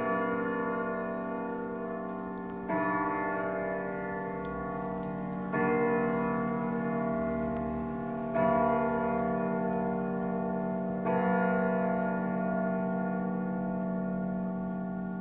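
A longcase clock striking the hour on its gong: five slow strokes about three seconds apart, each ringing on into the next.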